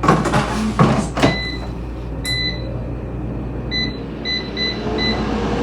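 A dish is set in and an appliance door knocks shut. Then comes a string of short electronic keypad beeps as the cook time is keyed in, over a steady low hum.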